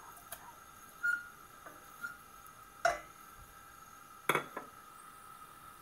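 A spoon knocking and scraping against a stainless steel saucepan as raw minced meat is pushed into it: a few sharp clinks, the last two loudest.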